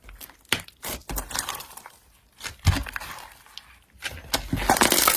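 Slime being handled: irregular squishing, crackling and popping, sparse at first and busier near the end.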